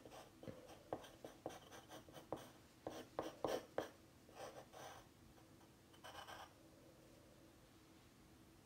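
Faint, quick scratching strokes of drawing on paper: many short marks over the first five seconds and one longer scribble about six seconds in.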